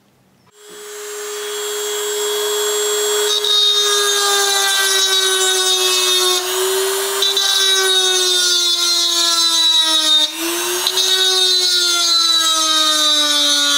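A small high-speed electric power tool starts about half a second in and runs steadily under load, its whine sagging slowly in pitch as it bears on the metal of the folding knife during disassembly, with two brief dips where the load changes.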